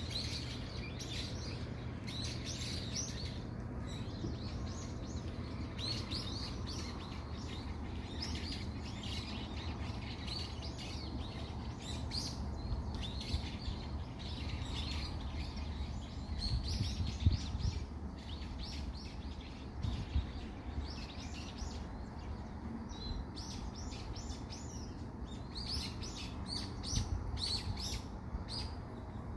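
Many small birds chirping and twittering continuously in trees, dense rapid high calls overlapping one another. A steady low rumble runs underneath, with a few low thumps around the middle and again near the end.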